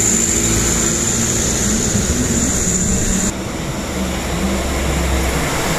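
Loaded sugarcane trucks' diesel engines running under load on a steep uphill climb, a steady low drone. About three seconds in, the sound turns suddenly duller and slightly quieter.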